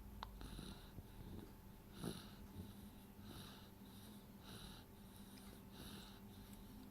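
Faint, wheezy snoring: soft breaths come and go roughly once a second, with a short click just after the start.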